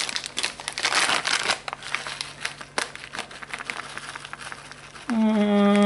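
Plastic bag of grated Parmesan cheese crinkling as it is handled and tipped over a dish, heaviest in the first second or so, then lighter. Near the end a voice holds one steady note for about a second.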